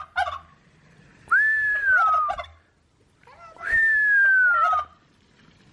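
A person whistles a long note that falls in pitch, twice, and each time a turkey answers with a short, rapid gobble; another gobble comes right at the start.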